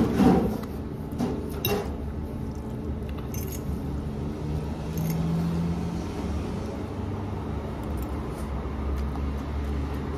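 Someone eating spaghetti with a metal fork: slurping and a few clinks of the fork against the plate in the first two seconds, then quieter eating over a steady low hum.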